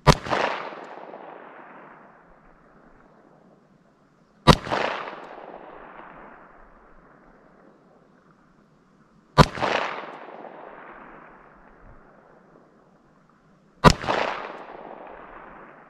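Four shots from a Smith & Wesson Model 15 revolver with a 4-inch barrel firing Winchester White Box .38 Special 130-grain full metal jacket rounds, spaced about four and a half seconds apart. Each crack is followed by an echo that fades over about two seconds.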